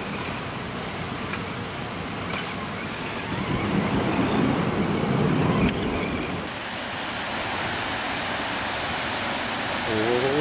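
Steady rushing of river water, with a louder swell of water noise from about three and a half to six seconds in.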